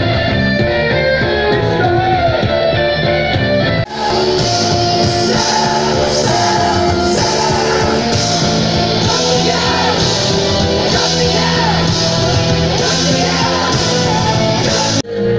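Live rock band playing loudly with electric guitar and a singer. The sound breaks off and jumps at edits about four seconds in and again near the end.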